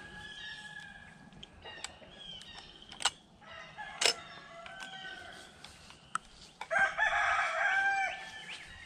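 A rooster crows once, a long call near the end. Two sharp clicks come earlier, the second the loudest single moment, and small birds chirp faintly.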